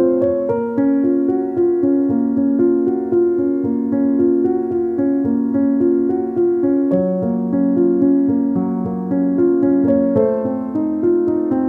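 Background music: a keyboard piece of held chords over a steady pulse.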